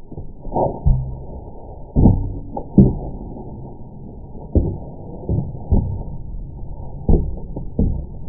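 About ten irregular dull thumps and knocks, in keeping with wooden boards and paper armour being handled and shifted.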